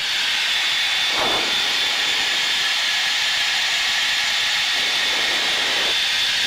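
Steady cockpit noise inside an F/A-18 in flight: an even, loud hiss of jet engines and airflow with a thin high whine running through it.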